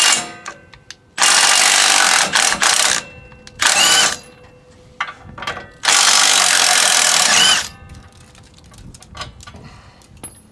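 Cordless impact wrench with a 7/8 socket hammering bolts loose on a Kubota L4701 tractor's front frame. It runs in three bursts, the longest about two seconds and a short one in between, each ending with a brief whine as the motor stops. Light metal clinks sound between the bursts.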